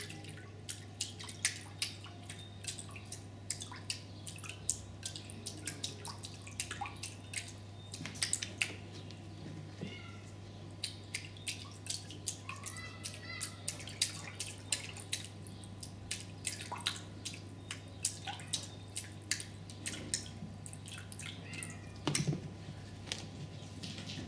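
Sphynx kitten lapping water from a bowl: small irregular wet clicks and drips, a few a second.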